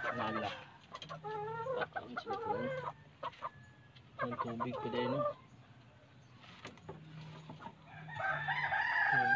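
Chickens calling in short bouts of clucking, then a rooster starts a long, steady crow near the end.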